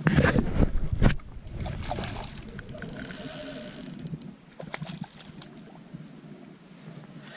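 Playing a hooked mullet on a spinning rod: heavy buffeting on the microphone in the first second or so, then handling noise and the fish splashing at the surface.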